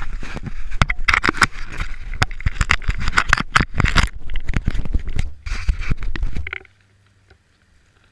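Handling noise on a GoPro camera being fitted onto a ski: rapid knocks, clicks and scrapes against the camera housing and mount. They stop abruptly about two-thirds of the way through, leaving it almost quiet.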